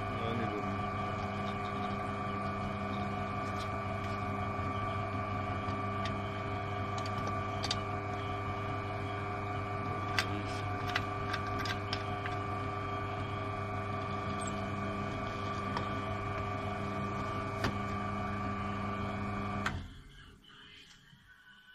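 Peugeot Outillage XXL drill press running with a steady hum of several fixed tones as its bit bores into a block of wood, not straining under the cut, with a few light ticks. The motor sound cuts off abruptly near the end.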